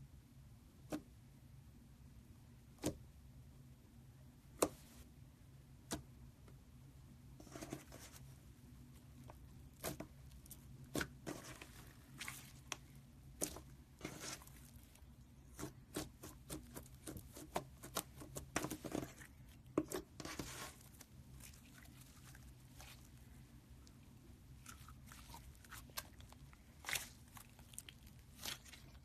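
Thick magenta slime being pressed, stretched and squeezed by hand, giving sharp sticky clicks and pops. They come a few at a time at first, thick and fast through the middle, then thin out again.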